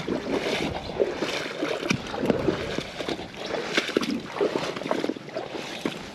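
Loch water sloshing and lapping in short, irregular splashes at the shore's edge.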